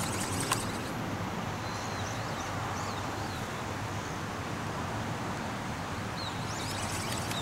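Strong wind rushing over the microphone in a steady noisy rumble, with small birds chirping in short high calls now and then.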